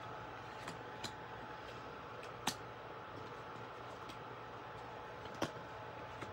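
Tarot cards being picked up and laid down on a cloth-covered table: a handful of light clicks and taps of card edges, the sharpest about two and a half seconds in, over a steady low hiss.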